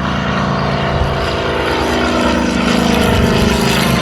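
Rotec R2800 seven-cylinder radial engine running with its propeller on a Kitfox light aircraft, a steady many-toned engine drone that grows a little louder about three seconds in.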